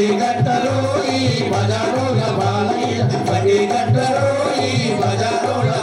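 Dance music with singing over a steady, repeating bass beat.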